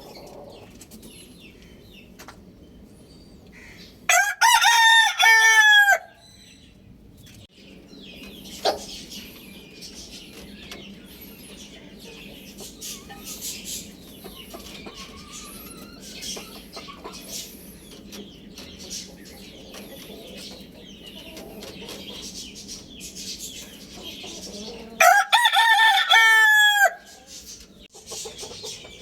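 A rooster crowing twice, each crow about two seconds long, the first about four seconds in and the second near the end. Quieter chicken calls come in between.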